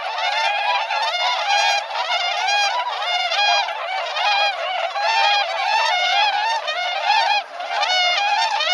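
A large flock of swans calling, many loud calls overlapping without pause, with a short lull about seven and a half seconds in.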